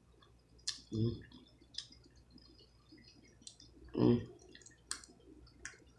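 Close-miked eating of cooked blue crab: about five sharp clicks and cracks as shell is picked apart and meat is eaten. Two short voiced hums come from the eater, about a second in and about four seconds in.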